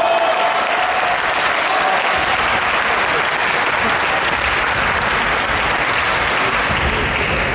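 Spectators applauding steadily after a point in a badminton match, with a drawn-out shout over the clapping in the first two seconds.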